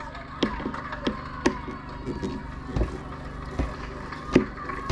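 Irregular sharp knocks and clicks, roughly one or two a second, over a steady low hum.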